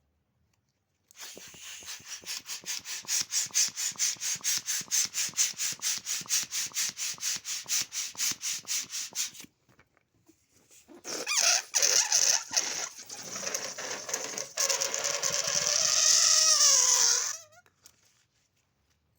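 Balloon pump working in rapid, even strokes, about five a second, for some eight seconds. After a short pause comes a loud rush of air with a wavering squeal that bends up and down and cuts off suddenly, typical of air escaping through a stretched balloon neck.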